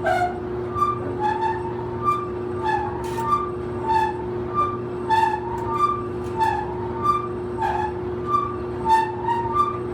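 Old clothes dryer running: a steady motor hum under a regular squeak that repeats about one and a half times a second, alternating between a lower and a higher pitch.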